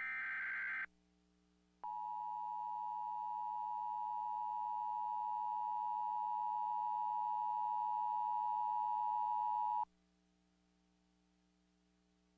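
The last of the Emergency Alert System's digital header bursts, a harsh electronic warble lasting under a second. After a short gap comes the EAS two-tone attention signal, a steady dual tone that holds for about eight seconds and then cuts off suddenly.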